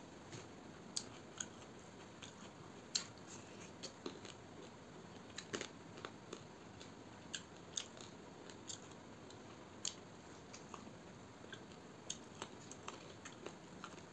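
A man eating rice and chicken curry by hand: irregular short, sharp wet clicks and smacks from chewing and from fingers mixing the food on a steel plate, with one louder smack about three seconds in.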